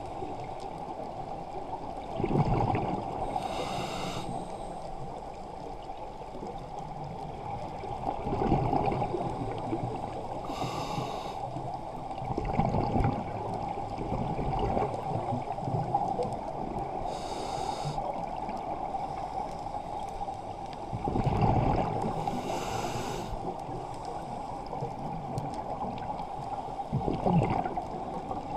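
Scuba breathing through a regulator underwater: a short hiss on each inhalation and a rush of exhaled bubbles, repeating about every five to six seconds over a steady hum.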